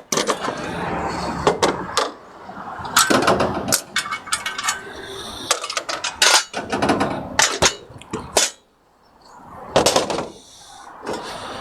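Metal parts of a motorbike loader grab clanking, clinking and knocking irregularly as it is taken apart and stowed in a toolbox, with a short pause about two-thirds of the way through.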